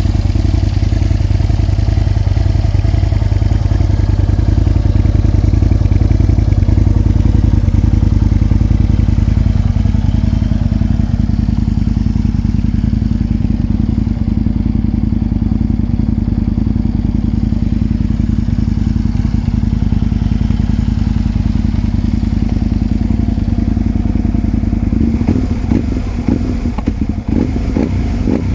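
Aprilia Tuono 1000R's 998 cc V-twin engine running steadily at constant revs. In the last few seconds it turns rough and uneven.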